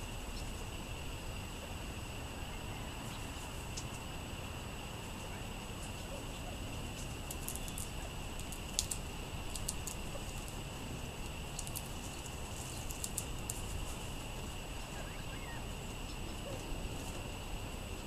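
Steady outdoor hiss and low rumble under a constant high hum, with a few clusters of short, very high chips from small songbirds around the middle.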